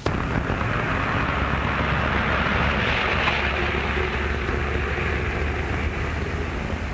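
Steady car engine rumble and street traffic noise under a heavy hiss from an old film soundtrack, starting suddenly.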